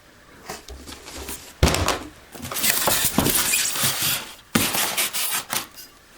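Packaging being handled during an unboxing: rustling and scraping, with sharp knocks about one and a half seconds in and again about four and a half seconds in.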